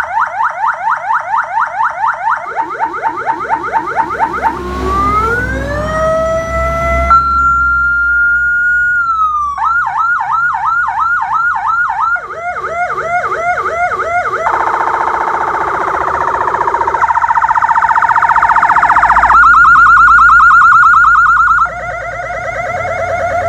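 Electronic emergency-vehicle siren stepping through its tones: a fast yelp, then a rising wail that levels off into a steady tone, a fast yelp again, then a rapid warble, and near the end a quick trill.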